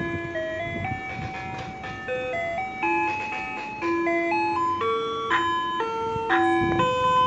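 Ice cream truck's loudspeaker playing its electronic chime jingle, a simple tune of steady notes changing a few times a second. It gets louder as the truck comes closer.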